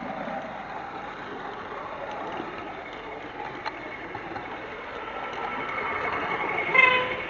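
Model railway locomotive running on the layout with a steady engine sound that grows louder over the last couple of seconds, then a short, loud horn toot near the end.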